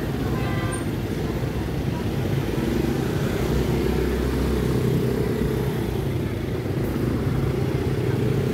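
A motor vehicle's engine running steadily with road noise, swelling a little about three seconds in. A short pitched sound comes half a second in.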